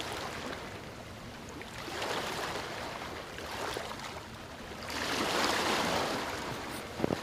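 Shallow water washing and rippling over a muddy shore, a steady rush without tones that swells twice, most strongly about five seconds in.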